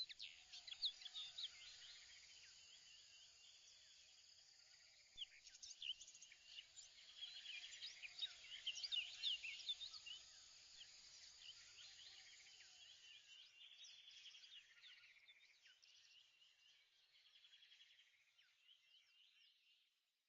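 Faint chorus of many small birds chirping and twittering, busiest in the middle and fading out near the end.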